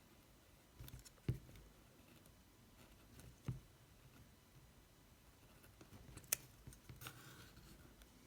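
Quiet cutting and handling of a small paper model part: three sharp clicks, the loudest past the middle, with faint paper rustling near the end.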